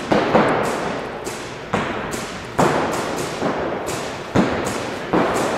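Paintball markers firing sporadically: about six sharp pops at uneven intervals, each echoing through a large indoor hall.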